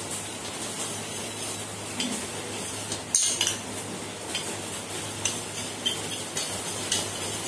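Steel spoon beating eggs in a small steel bowl: quick, irregular clinks and scrapes of the spoon against the bowl's metal side, with one louder clink about three seconds in.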